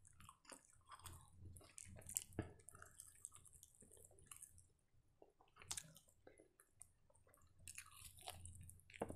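Faint, close chewing and wet mouth sounds of a person eating chicken in green masala gravy, biting the meat off the bone. Several sharp clicks stand out, the loudest near the end.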